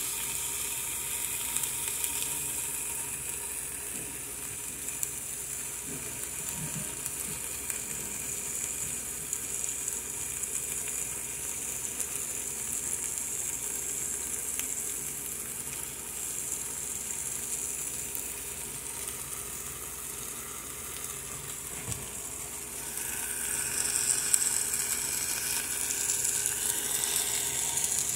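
Chops searing in a hot pan over high heat: a steady sizzle with scattered crackles, growing louder near the end.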